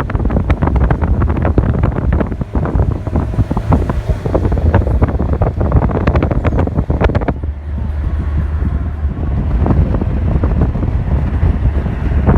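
Moving car: a steady low road and engine rumble, with wind buffeting the microphone. The buffeting eases for a couple of seconds just past the middle.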